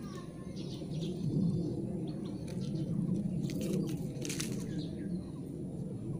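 Rural outdoor ambience: faint birds chirping over a steady low rumble on the phone's microphone, with a few short rustles a little past the middle.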